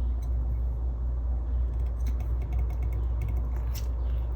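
A heavy tumbler presses boiled potatoes flat on a baking tray, giving a few faint taps and clicks over a steady low hum.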